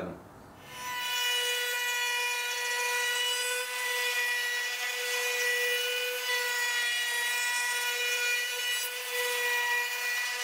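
Table-mounted wood router running at a steady high-pitched whine while a small wooden block is fed across the bit. The whine starts about a second in.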